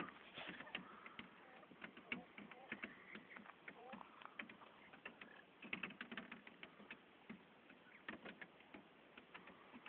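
Caged quail pecking and shuffling in straw and seed: a faint, irregular patter of small clicks and ticks, with one brief soft call about four seconds in.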